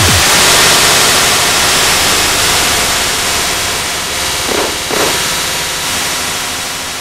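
Loud static-like hiss that opens with a low, falling boom and slowly fades, with two brief swells about four and a half and five seconds in.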